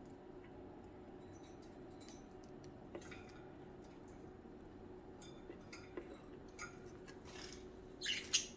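Budgies chirping softly in short high calls, mixed with small clicks and taps in the cage, with a louder burst of chirps near the end. A steady low hum runs underneath.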